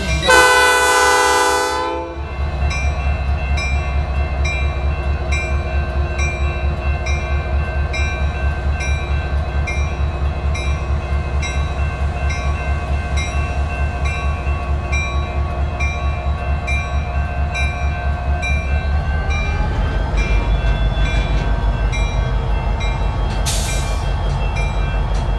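Diesel locomotive horn sounding one short blast, then an EMD SD60 locomotive's diesel engine running steadily as it pulls past; about 19 seconds in the engine note rises as the throttle is opened, and a short hiss of air follows near the end.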